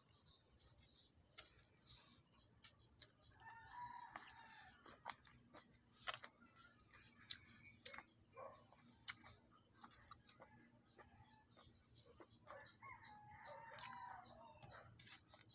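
A rooster crowing faintly, twice: once about four seconds in and again near the end, each crow lasting a second or two. Between the crows come short sharp clicks and smacks of eating close to the microphone, one of them louder than the rest.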